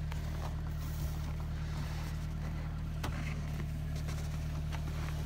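Car engine idling: a steady, even low hum.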